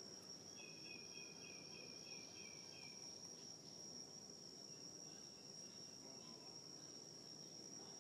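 Faint, steady high-pitched drone of insects in the trees, with a short run of about eight quick chirps about a second in.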